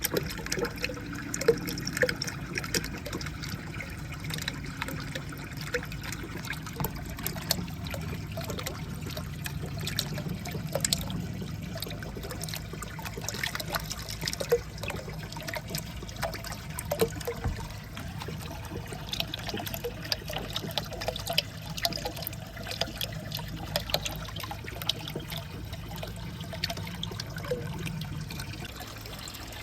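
Water running steadily along a water marble-run course, with scattered small clicks and knocks of marbles and super balls carried along by the flow.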